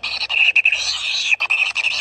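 Kingfisher nestlings giving continuous, fast-pulsing buzzy begging calls, with a sharp click about a second and a half in.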